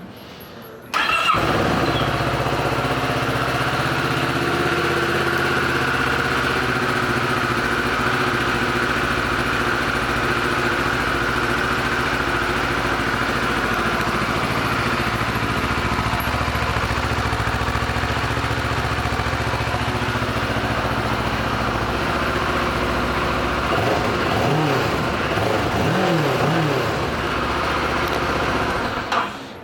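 Kawasaki Versys 650's parallel-twin engine starting about a second in and idling steadily, its note wavering a few times near the end before it shuts off.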